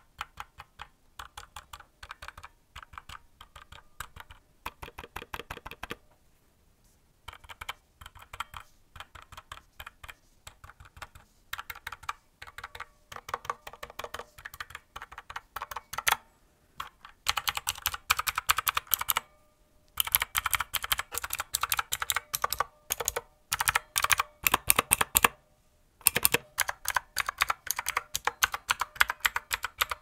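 Hiwings HI200 mechanical keyboard with Outemu blue switches being typed on in quick runs of sharp, clicky keystrokes with short pauses between them. The runs are softer in the first half and louder from about halfway on, as the typing moves to the right-hand keys, which give a hollow sound.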